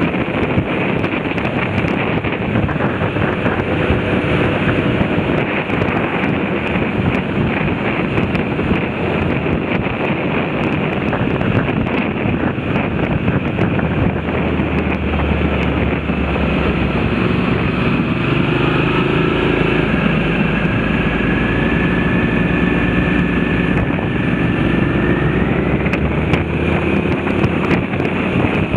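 Wind rushing over the microphone of a moving motorcycle, with the motorcycle's engine running under it. About halfway through, the engine note comes through more clearly and climbs slowly as the bike picks up speed.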